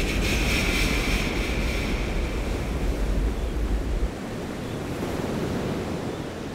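Sea waves washing against the shore, with a hissing wash strongest in the first couple of seconds and wind rumbling on the microphone. The wind rumble cuts off about four seconds in, leaving a softer, steady wash of surf.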